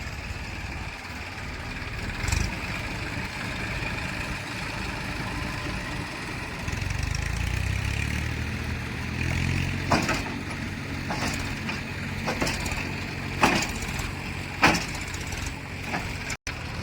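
Heavy diesel engine running, with its low hum growing stronger about seven seconds in. Several sharp knocks or clanks come through in the second half.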